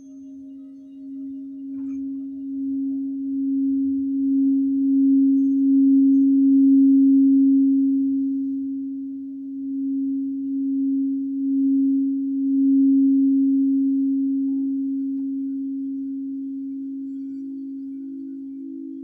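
A singing bowl sung around its rim: one steady low note that swells in pulses, builds to a peak about seven seconds in, then slowly fades.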